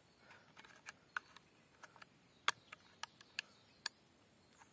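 Faint, sharp plastic clicks and ticks, about a dozen spread irregularly, from a trail camera's case being handled as it is switched off.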